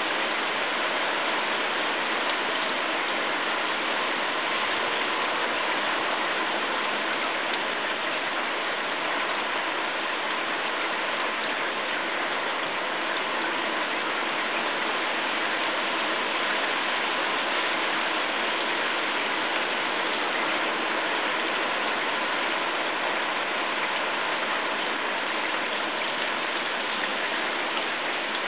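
Steady rain falling on a patio and on a nylon jacket lying on a plastic table: an even hiss that holds steady throughout.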